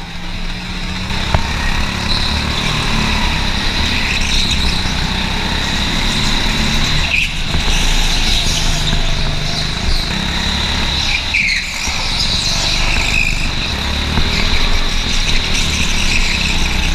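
Go-kart engine running at speed in laps of an indoor track, with a steady whine and drone throughout. A couple of brief tyre squeals come through in the corners, about seven and eleven seconds in.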